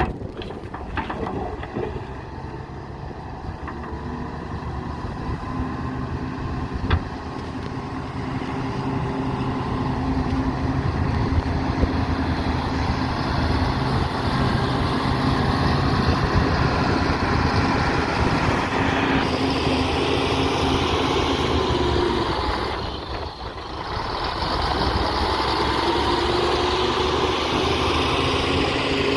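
Diesel engine of heavy earthmoving machinery running and working under changing load, swelling and easing, with a brief drop in level about three-quarters of the way through. A single sharp click sounds about seven seconds in.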